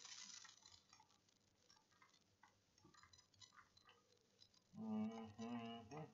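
Faint scattered clicks and ticks, typical of a computer mouse clicking and scrolling. About five seconds in, a voice comes in with a short drawn-out sound or mumbled word.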